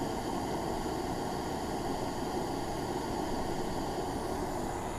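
Steady hiss of a burner flame playing on a calcium-silicate insulation board during a high-temperature heat test.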